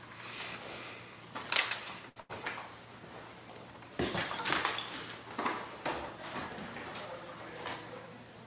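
Handling noises: scattered clatters, clicks and rustles of objects being moved about, with a denser run of clattering in the second half and a short break in the sound a little after two seconds in.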